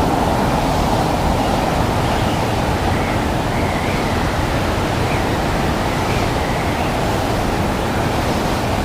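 Blizzard wind blowing: a steady, unbroken rushing noise.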